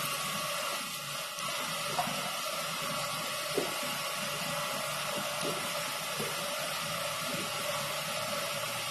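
Gram flour mixture cooking in a non-stick pan on an induction cooktop: a steady hiss with a few small, soft pops.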